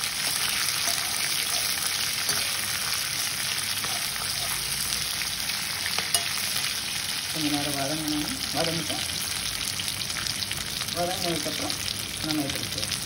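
Green beans, carrots and dried red chillies sizzling steadily in hot oil in a metal kadai, stirred with a metal slotted spatula that scrapes against the pan, with one sharp clack about six seconds in.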